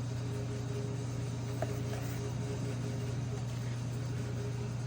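Steady low electrical hum from a running kitchen appliance or fan motor, with one faint click about one and a half seconds in.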